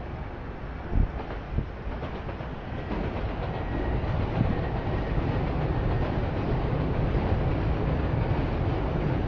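A train passing: two short knocks, then a rumble that builds from about three seconds in and holds steady.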